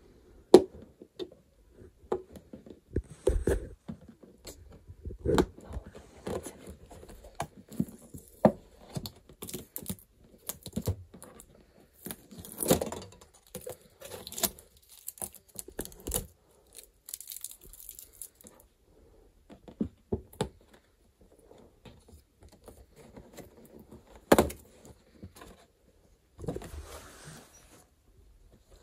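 Hands handling a cardboard cake box: scattered clicks, taps and rustling of cardboard, paper and string as the tie is undone and the lid opened, with a few sharper knocks, the loudest near the end.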